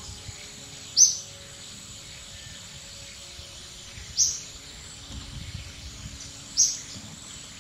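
A bird calling three times, a short, high chirp every two to three seconds, over a steady high-pitched insect drone.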